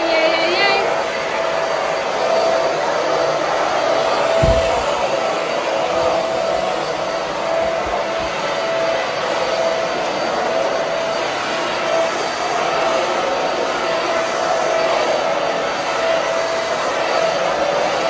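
Cordless stick vacuum cleaner running steadily as it is pushed over a rug: a constant motor whine over a rush of air.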